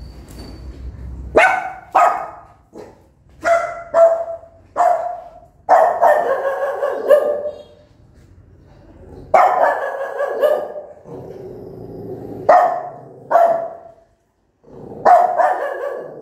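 Small nursing mother dog barking loudly in a run of sharp single barks, with a few longer drawn-out barks among them.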